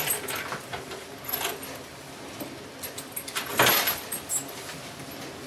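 Small metal clinks and jangles of stall tie hardware as cows are tied up at the feed trough, with one louder rattle about three and a half seconds in.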